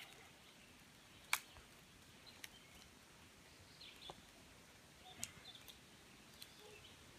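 Near silence outdoors, broken by a few faint sharp clicks, one a little over a second in the most distinct, and a few faint high chirps.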